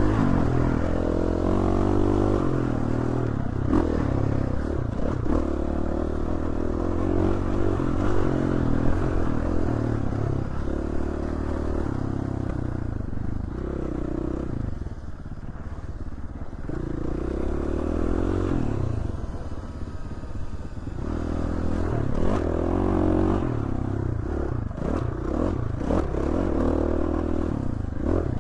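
Dirt bike engine riding a trail, the revs rising and falling repeatedly as the throttle is worked, with knocks and clattering from the bike over rough ground; the throttle eases off briefly twice.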